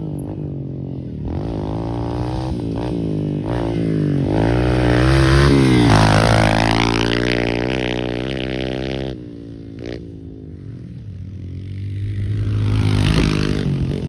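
Yamaha TT-R125 dirt bike's single-cylinder four-stroke engine running through a GYTR aftermarket exhaust, revving up and down as it is ridden. It is loudest about six seconds in, drops off sharply about nine seconds in as the throttle is closed, then builds again near the end.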